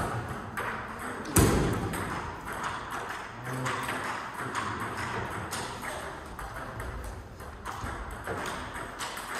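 Table tennis ball clicks: sharp bat strikes and table bounces spaced about a second apart, with one much louder knock about a second and a half in.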